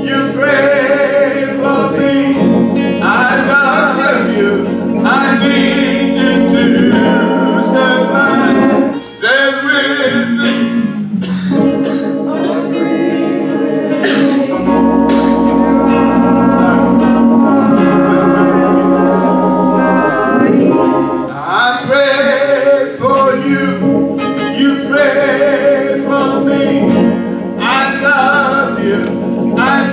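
Gospel song sung by a man to church organ accompaniment, with sustained organ chords under phrases of the singing voice.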